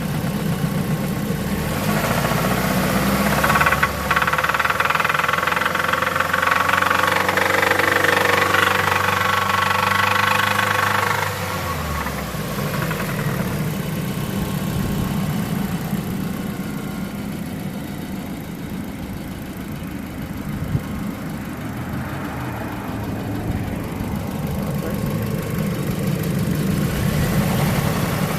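2004 Mazda 3's four-cylinder engine running with a knocking noise. It runs at raised revs for about ten seconds, then settles back to idle.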